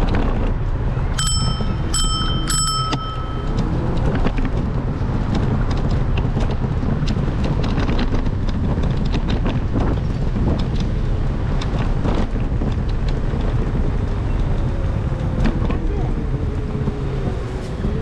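Bicycle bell rung three times in quick succession about a second in, each ring briefly hanging on, over steady street and traffic rumble.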